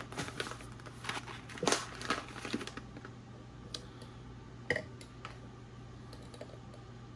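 Foil-lined coffee bean bags crinkling as they are handled and set down, followed by a few light knocks as a glass coffee brewer is picked up and put back on a kitchen scale. A steady low hum runs underneath.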